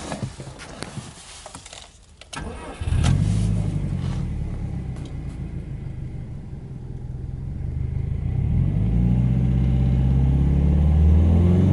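Subaru Impreza WRX STi's turbocharged boxer four-cylinder starting: the starter cranks briefly, the engine catches with a flare about three seconds in and settles to a steady idle. From about eight seconds in the revs climb and hold at around 2,000 rpm.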